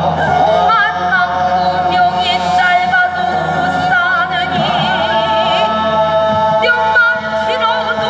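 Korean traditional folk singing in shamanic prayer style: voices holding long notes with wide, wavering vibrato over a steady low instrumental drone.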